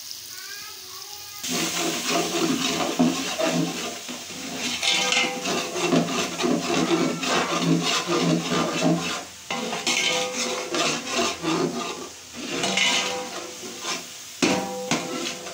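Water poured into a hot aluminium pot of fried onions, tomatoes and whole spices starts suddenly about a second in and sets off a loud sizzle and boil. Through the rest of the time a metal ladle stirs and scrapes across the pot bottom.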